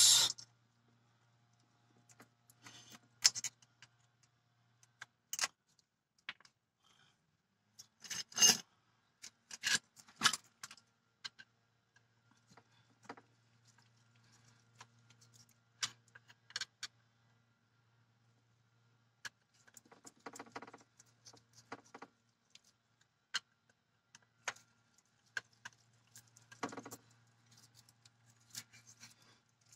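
Light metallic clicks and clinks, irregular and scattered, from small bolts and metal parts being handled by gloved hands at a car's A/C compressor during a clutch coil fitting, with a few brief rustling scrapes.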